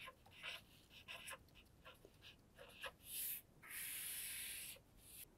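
Marker pen writing on chart paper: a run of short, faint scratchy strokes, then a steady hiss lasting about a second near the end as a long line is drawn under the words.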